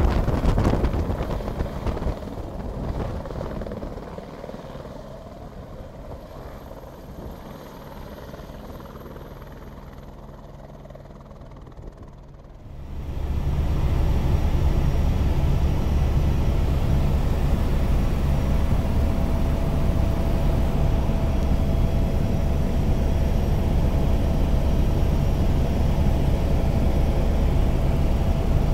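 Light helicopter lifting off, its rotor and turbine sound fading over the first few seconds as it moves away. About 13 seconds in, this gives way suddenly to the loud, steady drone of the helicopter's turbine and rotor heard from inside the cabin in flight, with a thin steady whine above the low rumble.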